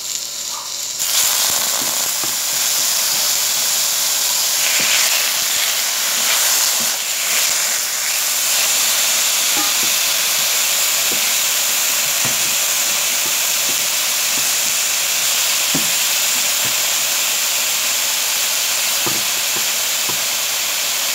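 Chicken pieces sizzling in hot oil in a nonstick wok with garlic and onion. The sizzle starts suddenly and loud about a second in as more chicken goes into the pan, then runs steadily, with a few light knocks.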